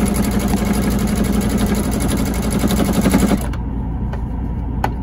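Electric sewing machine running, its needle stitching rapidly and evenly through knit fabric, then stopping about three and a half seconds in. A single click near the end, over a steady low hum.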